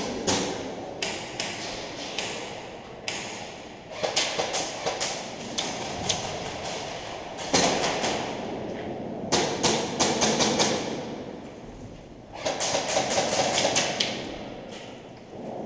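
Airsoft guns firing in repeated quick strings of sharp shots, several volleys with short pauses between them.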